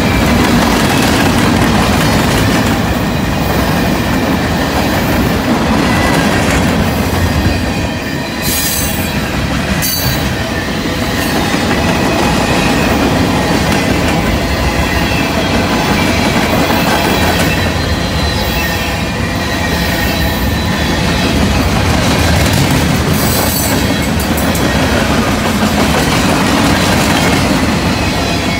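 Freight train cars rolling past close by: a loud, steady rumble and rattle of wheels on the rails, with high metallic wheel squeals at times.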